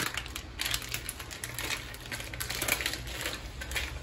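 Plastic wrapping crinkling and rustling in quick, irregular crackles and clicks as it is handled and slit open with a kitchen knife.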